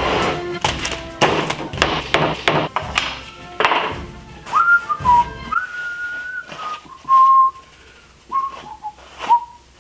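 Music with strong beats, then from about four and a half seconds in a person whistling a slow tune of single held notes that slide up into the pitch.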